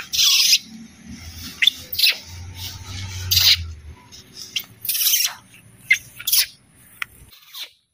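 Baby monkey giving a string of short, shrill screeches and squeals, several falling in pitch, as it clings to a bamboo pole. The calls stop shortly before the end.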